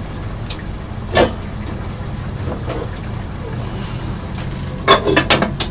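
Cookware handled at a stove: a single knock about a second in, then a quick run of clicks and clinks near the end as a hand works at the pot. A steady low hum lies under it.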